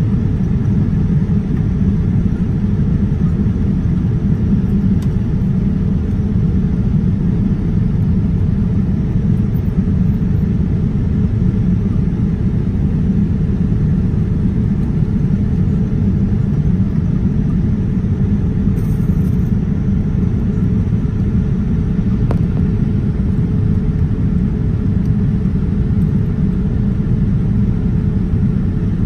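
Steady low rumble of cabin noise inside a Boeing 787-9 airliner in flight: the drone of engines and airflow, unchanging throughout.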